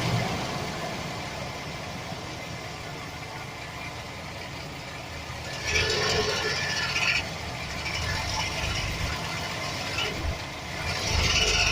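Chevy Express 4.3 L V6 engine running, with a rattle that the owner puts down to a bad starter motor gear bumping against the flexplate. It grows louder for about a second around six seconds in and again near the end.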